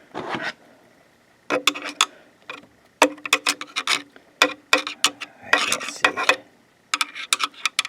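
Pattern-selector mechanism of a Janome ME4014 sewing machine clicking and ratcheting as it is turned by hand through its step positions, in several short bursts of rapid clicks.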